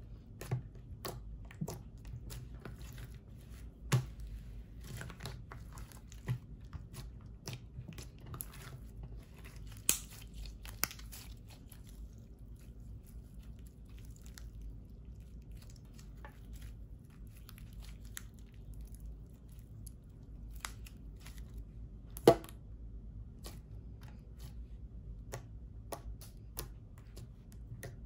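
Clear slime mixed with lipstick being kneaded, squeezed and poked by hands: sticky squelches with frequent small clicks and pops. One sharp, loud pop comes about two-thirds of the way through.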